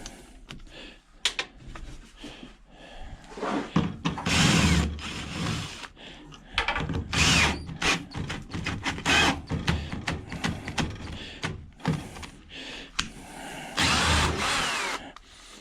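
Power drill running in several short bursts of about a second each, backing out fasteners, with small metal clicks and clinks between the bursts.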